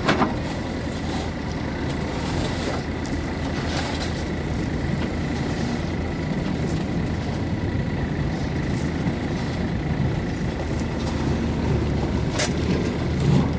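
JCB 3DX backhoe loader's diesel engine running steadily as the backhoe arm works through a gravel pile, with a faint steady high whine. A few short knocks sound through it.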